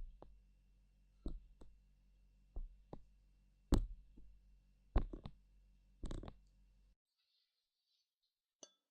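Light clinks and taps of small hard objects, about a dozen at an uneven pace, each short with no lasting ring. They stop about seven seconds in, and one faint click follows near the end.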